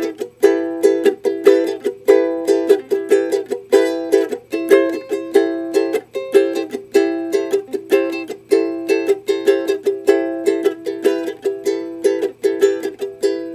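Solo ukulele strummed in a quick, steady rhythm through a minor-key chord progression. Ringing chords alternate with short percussive muted strokes, made by barring the chord so the strings can be damped.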